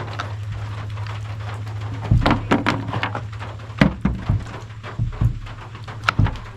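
Irregular clicks and knocks of small parts being handled and fitted on a string trimmer during a carburetor swap, starting about two seconds in, over a steady low hum.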